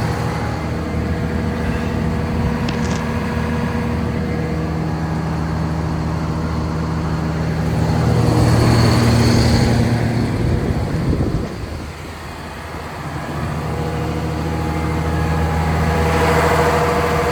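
Kobelco SK500 LC-9 excavator's diesel engine idling steadily. It grows louder about eight seconds in, drops off briefly around twelve seconds, then rises again.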